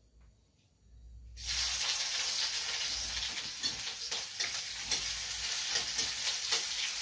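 Chopped onion and green chillies hitting hot oil in a kadhai, sizzling. The sizzle starts suddenly about a second and a half in and keeps going, with light scrapes of a ladle stirring them.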